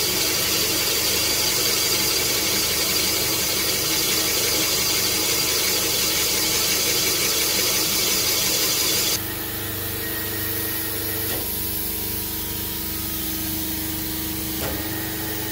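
Cylinder boring bar cutting a cast iron Ford Windsor cylinder bore out 30 thou oversize, the tool bit squealing against the bore wall. About nine seconds in, the squeal cuts off abruptly, leaving a quieter steady machine hum.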